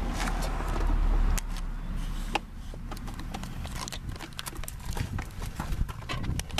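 Irregular sharp clicks and clinks of hand tools working on metal, several a second. A low rumble runs for about the first second and a half, then stops.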